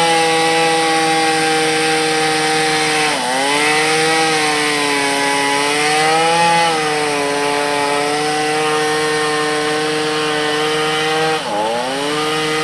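Chainsaw running at full throttle while cutting into a durian tree's wood, its engine note steady and high. The pitch drops sharply and recovers twice, about three seconds in and again near the end, as the chain bites and the engine bogs under load.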